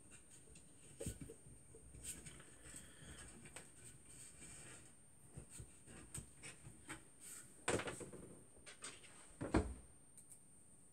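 Light clicks, taps and rubbing of small metal parts and hand tools handled against an aluminium extrusion rail, with two louder knocks in the second half. A faint steady high whine sits under it.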